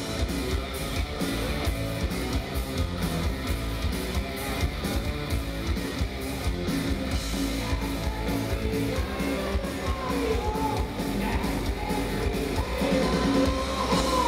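Heavy metal band playing live, heard from within the crowd: distorted electric guitars over drums, with a voice coming in about two-thirds of the way through.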